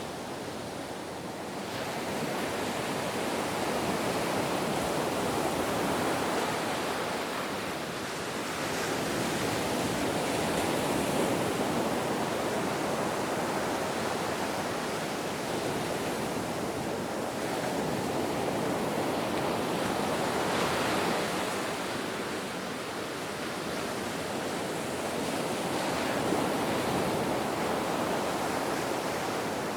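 Ocean surf: a continuous wash of breaking waves that swells and eases every few seconds.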